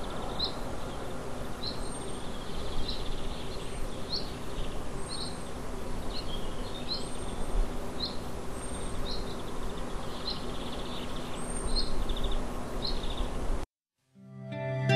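Outdoor ambience with a bird calling over and over, short high chirps about once a second, over a steady background hiss. Near the end the sound cuts off to silence and music begins.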